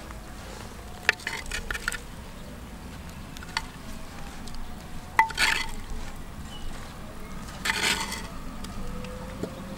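A metal spoon scraping and clinking against the inside of an earthenware clay pot as food is scooped out. It comes in three short bursts, with a single clink between the first two.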